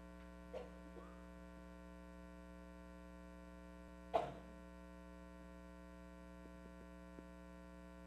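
Steady electrical mains hum in the recording, with one sharp knock about four seconds in and a fainter one near the start.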